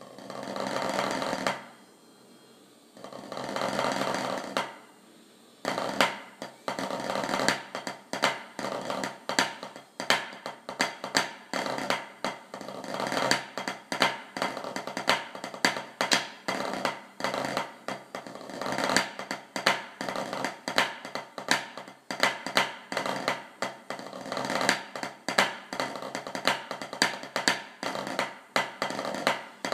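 Drumsticks playing snare-drum practice: two sustained rolls, then from about six seconds in a fast, steady stream of strokes with regular louder accents.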